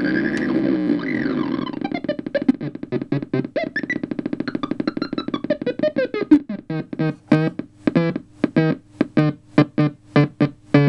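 Homemade three-oscillator phototheremin making a buzzy electronic tone whose pitch wavers and glides. About two seconds in, the tone breaks into rapid beeps, and the beeps slow to about three a second as a hand shades its light sensors.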